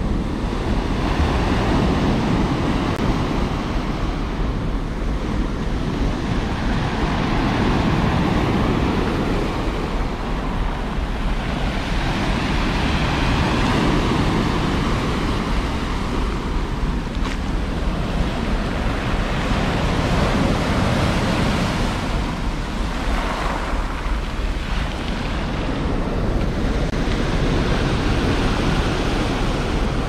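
Sea surf breaking and washing up over a pebbly beach, its wash swelling and easing every few seconds as each wave comes in.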